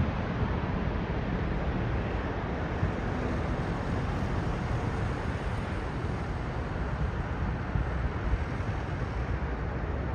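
Twin-engine wide-body jet airliner landing: a steady low rumble of its engines as it comes over the threshold, touches down and rolls out, with some wind on the microphone.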